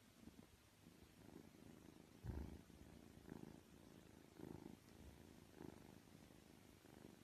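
A domestic cat purring, faint, in a slow rhythm of about one swell a second with its breathing.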